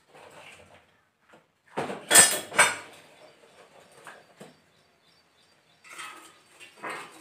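Dry firewood sticks clattering and knocking against each other as they are pulled from a plastic crate and handled. The loudest burst of clatter comes about two seconds in, with smaller knocks near the end.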